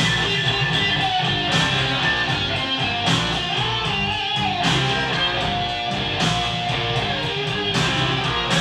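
Rock backing track in an instrumental passage: electric guitar with bending notes over bass and drums, a cymbal crash about every one and a half seconds.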